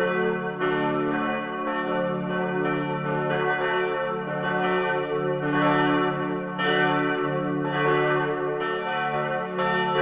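Church bells ringing together in a continuous peal, with a new strike every half second to a second over the lingering hum of the earlier strikes.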